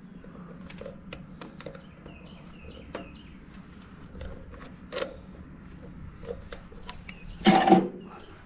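A steady high insect trill over a low hum, with scattered light clicks and knocks from hand work on the diesel tractor's stopped engine while its injector lines are bled of air, and a louder brief knock about seven and a half seconds in.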